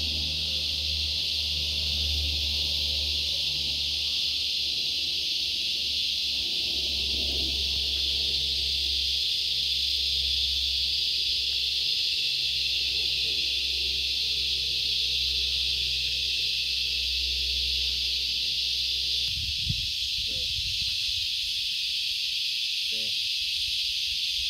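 Steady, high-pitched insect chorus, unbroken throughout, over a low rumble that stops near the end. A few faint knocks follow.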